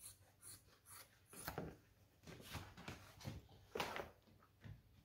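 Faint rustling and rubbing of a thick leather sample being handled and moved on the table, in a few irregular bursts with some soft knocks.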